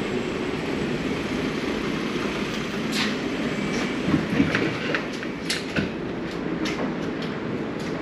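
Cab interior of a DAF XF truck on the move: a steady rumble from the engine and road, with scattered light clicks.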